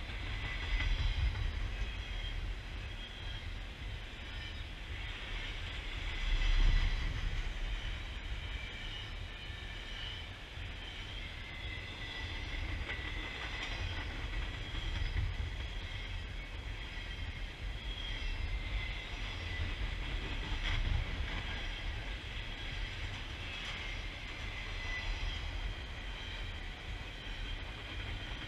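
Double-stack container cars of a freight train rolling past: a steady rumble of steel wheels on rail, with a wavering high squeal from the wheels, swelling louder about seven seconds in.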